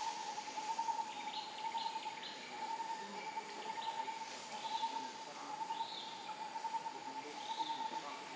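Outdoor ambience: a steady, slightly wavering insect drone, with scattered short bird chirps over it.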